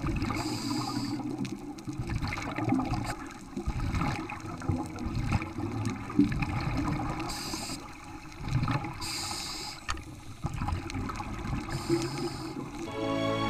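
Underwater sound of the sea picked up through a camera housing: an uneven low water noise, with a few bursts of bubbling hiss from scuba divers' exhaled breath.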